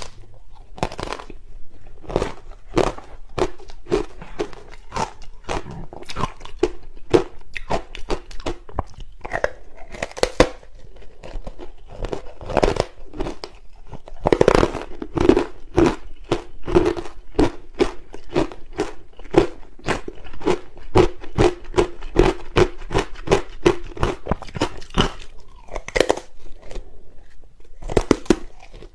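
Close-up crunching of matcha-powdered ice being bitten and chewed: a rapid string of crisp crunches, with a louder run of bites about halfway through followed by fast, even chewing.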